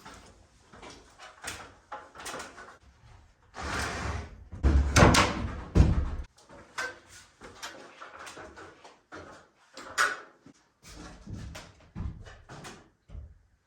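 Wooden knocks, thumps and scrapes of lumber being handled, heaviest in a run of loud thumps about four to six seconds in, then scattered lighter knocks.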